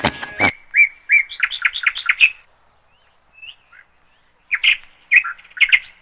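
A bird calling in two bursts of short, sharp chirps, about eight in the first and five in the second, with a pause between. Before the calls, a denser, muffled sound cuts off about half a second in.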